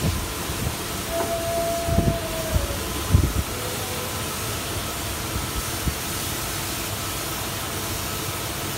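A large glass panel being handled and set into a door frame, giving dull low knocks about two and three seconds in, over a steady background hiss.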